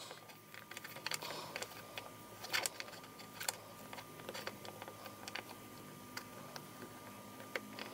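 Faint handling noise: scattered small clicks and rustles as fingers twist pipe cleaners around a small plastic toy figure.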